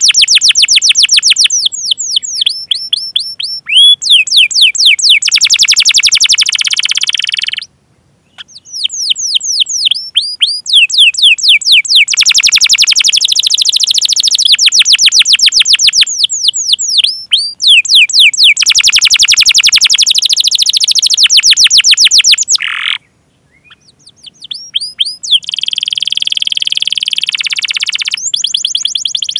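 Domestic canary singing long, fast trills of repeated sweeping chirps and rolling phrases. The song stops twice, briefly, about eight seconds in and again about twenty-three seconds in.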